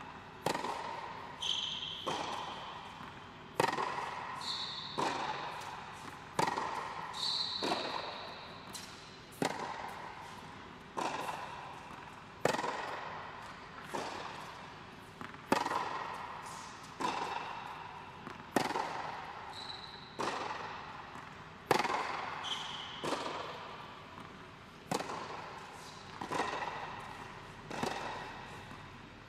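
Tennis ball being struck by rackets and bouncing on a hard court during a baseline rally, sharp pops about one a second that echo in an indoor hall. A few short high squeaks, typical of tennis shoes on the court surface, come in between.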